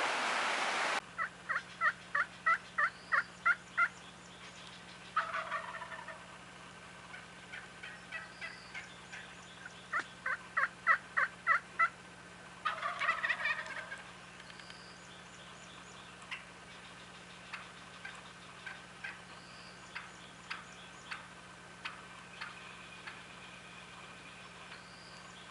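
Wild turkeys calling: a run of about eight evenly spaced yelps, then a rattling gobble about a second long. The yelps and gobble come a second time, followed by scattered faint single calls.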